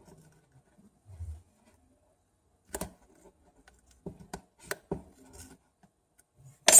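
Scattered sharp clicks and taps of small tools and phone parts being handled on a workbench, with a soft low thump about a second in and a louder sharp click near the end.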